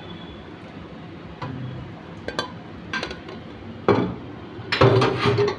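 Aluminium pots and a steel cone strainer knocking and clinking together while stock is strained, with a few scattered clinks and then a louder run of knocks near the end, one of them ringing briefly.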